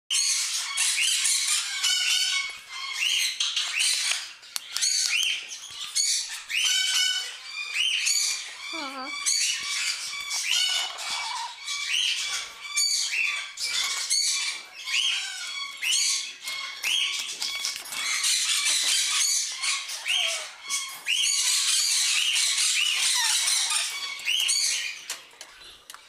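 Parrots squawking and chirping: a dense, nearly unbroken chatter of short, high calls.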